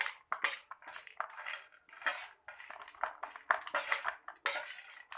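A spoon mixing crunchy kurkure snacks with chopped onion, tomato and coriander in a bowl: repeated crunchy, rustling strokes with the spoon scraping and clinking against the bowl, about two a second.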